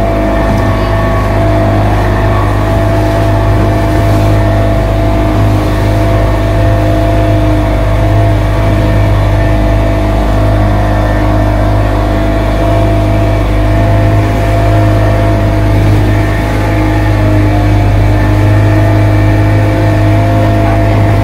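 Motorboat engine running at a steady cruising speed, heard on board as a constant drone with no change in pitch.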